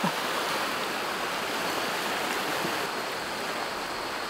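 Sea surf washing on the coast, a steady even wash with no single breaker standing out.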